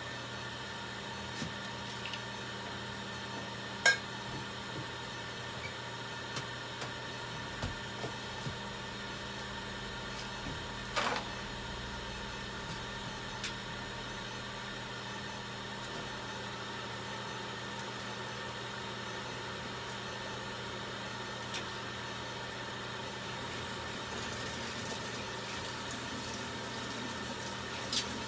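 Steady electrical machine hum with several tones held in it, broken by a few small clicks and taps. The sharpest click comes about four seconds in, and a faint high whine joins in near the end.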